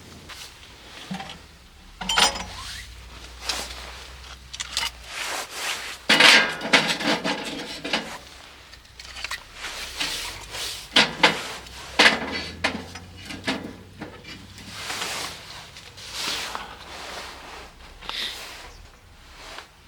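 Objects being handled, with irregular knocks, clinks and rubbing about one to a few each second, the loudest around six seconds in and again near twelve seconds.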